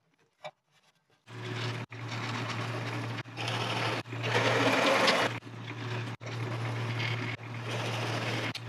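Drill press running at its slowest speed, 300 RPM, with a steady motor hum as a Forstner bit and then a spade bit bore into wood. It comes in about a second in after two clicks, and is broken by several abrupt cuts; the cutting noise is loudest around the middle.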